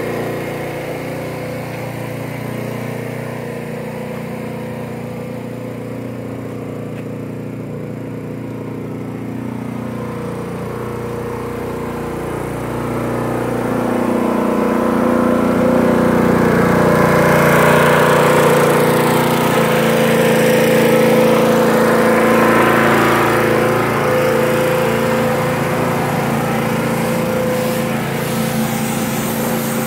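Small gas engine of a trailer-mounted pressure washer running at a steady pitch. About halfway through it grows louder and a hiss joins it for several seconds before easing off again.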